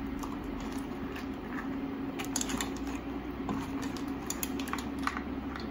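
Crab, lobster and mussel shells knocking and scraping in a frying pan as a spoon stirs them: scattered short clicks over a steady low hum.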